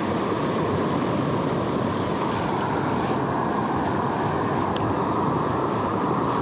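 Stream water rushing steadily, an even, unbroken hiss.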